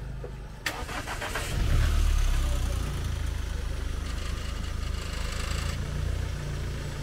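Mahindra Scorpio SUV's diesel engine starting: cranking about a second in, catching, then settling into a steady idle.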